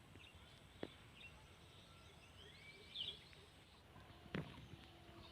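Indian ringneck parrot eating corn: two sharp clicks of beak on kernel, about a second in and near the end. A few faint, short, rising bird chirps come in between.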